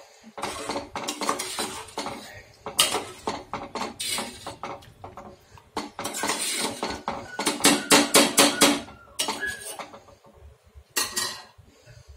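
Metal ladle stirring a thick dal curry in a stainless steel pot, clinking and scraping against the pot. A run of loud, quick knocks comes about eight seconds in, and one more knock about three seconds later.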